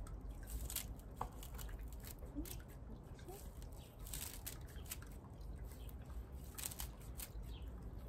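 Scissors snipping repeatedly through fresh dandelion and herb Robert stems and leaves, a run of short, irregular crisp snips as the herbs are chopped small.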